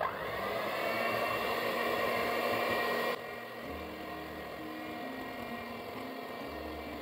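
Moulinex electric hand mixer starting with a short rising whine and running, its beaters whipping warm egg whites and sugar into meringue in a glass bowl. About three seconds in it suddenly gets quieter and runs on steadily.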